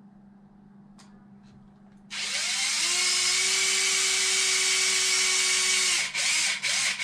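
Cordless drill starting about two seconds in, its motor rising in pitch and then running steadily for about four seconds, followed by a few short bursts as the trigger is pulsed.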